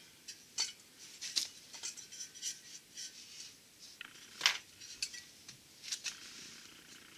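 Scattered light clicks and knocks of a steel torque converter and a wooden block being shifted about on a towel-covered bench, with one sharper clink about four and a half seconds in.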